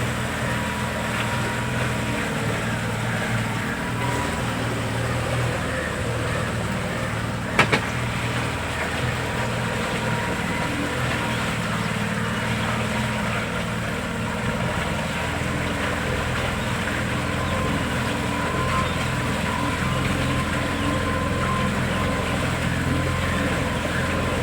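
A boat's motor running steadily at a constant speed, with one sharp knock about seven and a half seconds in.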